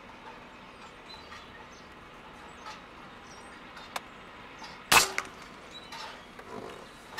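Benjamin Discovery .22 pre-charged pneumatic air rifle firing a single shot about five seconds in: one sharp crack, then a shorter click a moment later. A small click comes about a second before the shot.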